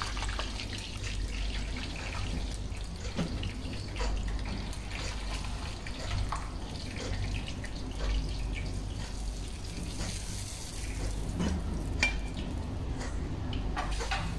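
Chicken pieces frying in hot oil in a pan: a steady sizzle with scattered crackles, and a few light clicks from the slotted spoon.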